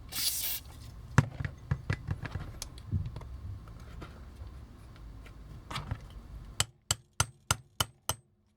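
Small hammer tapping a punch to drive out a wheel pin of a vintage plastic toy: a series of sharp taps, ending in a quick run of about seven evenly spaced taps.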